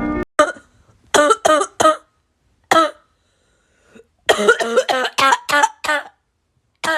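A person coughing in short fits. There is a single cough, then three quick coughs, then another single one, then a run of about six, then one more near the end.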